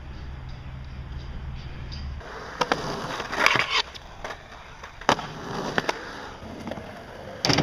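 Skateboard on concrete: wheels rolling, with several sharp clacks of the deck and tail striking the ground, the loudest around the middle and near the end. A steady low hum comes before the board sounds begin, about two seconds in.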